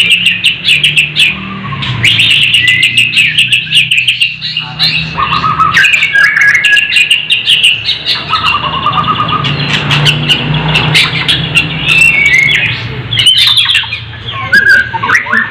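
White-rumped shama (murai batu) singing: a long, varied run of rapid sharp chirps and trills broken by short whistled phrases, over a low steady hum.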